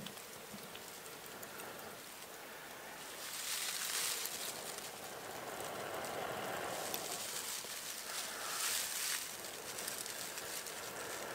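Dry grass crackling and rustling as hands fold a tinder bundle around a glowing char-cloth ember from a flint and steel. There are louder stretches about three to four seconds in and again near nine seconds.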